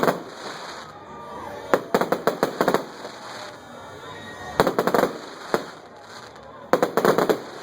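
Firecrackers going off in several rapid volleys of sharp bangs, each volley a quick string of cracks, with a second or two of background between them.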